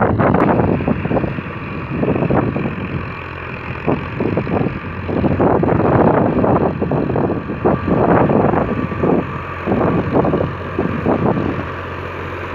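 A Fiat 480S tractor's three-cylinder diesel engine running steadily under load as it drives a 48-blade rotavator through dry soil, with irregular gusts of wind buffeting the microphone.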